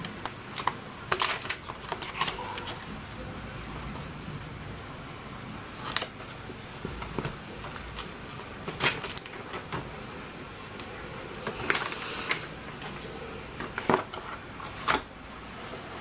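Hands handling a notebook covered in wrapping paper and the sheets of paper under it on a table: scattered paper rustles and light taps, with several sharper knocks as the notebook is stood on edge and set down.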